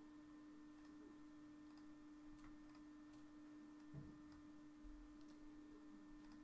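Near silence: room tone with a steady low hum and a few faint clicks.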